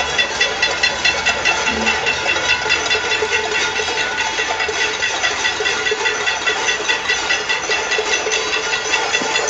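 Cacerolazo: many people banging pots and pans at once, a dense, continuous clatter of quick metallic strikes with a ringing tone.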